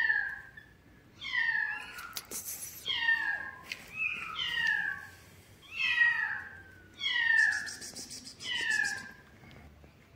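Kittens meowing over and over: high-pitched meows that each fall in pitch, about one a second, dying away near the end.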